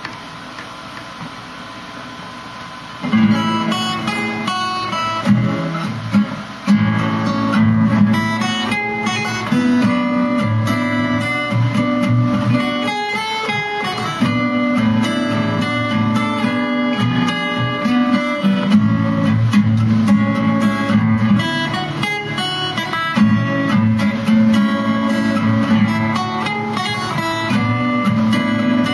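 Solo steel-string acoustic guitar with a capo, played with plucked and strummed notes as a continuous tune. The playing starts about three seconds in, after a quieter opening.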